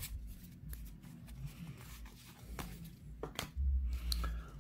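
Baseball cards being handled and flipped through by hand, card sliding against card in a few faint, light clicks and rustles. A dull low bump comes about three and a half seconds in.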